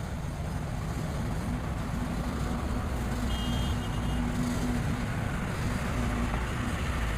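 Heavy road-construction machinery with its diesel engines running steadily: a continuous low drone.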